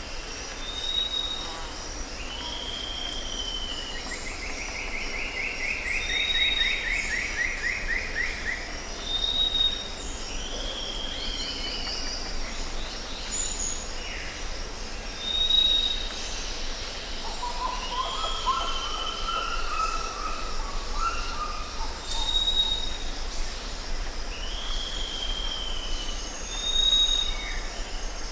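Jungle ambience: a steady, pulsing chorus of insects with several birds calling over it. A short high whistle repeats every few seconds, a rapid trill comes about five seconds in, and a lower warbling phrase past the middle.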